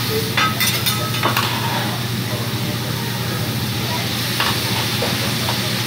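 Meat and vegetables sizzling on a hot teppanyaki griddle, a steady frying hiss. The chef's metal spatulas click and scrape against the steel plate several times in the first second and a half, and again twice near the end.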